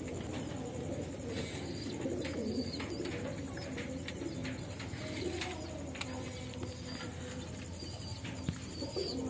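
Domestic pigeon cooing, low coos repeating throughout, with a few faint clicks.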